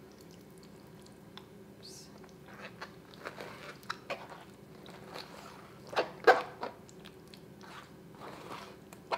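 Kitchen knife slicing raw beef liver on a plastic cutting board: irregular soft, wet cutting sounds and taps of the blade on the board, with the loudest pair of knocks about six seconds in.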